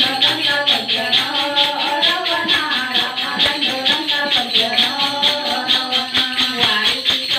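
Devotional bhajan singing by women's voices over a steady rhythm of jingling hand percussion, about four strokes a second.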